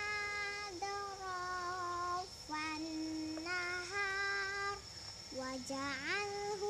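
A young girl singing solo in long held notes, with a quick rising ornament near the end.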